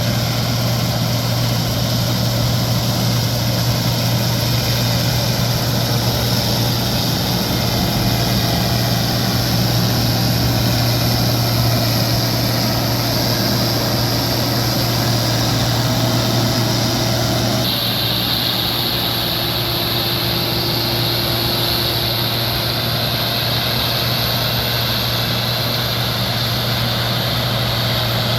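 Combine harvester running steadily, with a constant low engine hum under a high whine that shifts about two-thirds of the way through.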